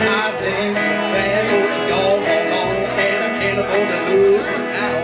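Country band playing an instrumental break on electric guitar, upright bass and acoustic guitar, with a steady beat and some gliding guitar notes.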